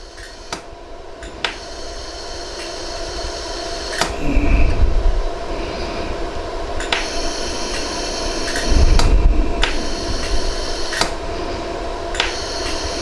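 Benchtop iWeld jewelry laser welder firing single pulses at white gold prongs: sharp clicks at irregular intervals, roughly one every second, over a steady machine hum. Two stretches of low rumble stand out, about four seconds in and again near nine seconds.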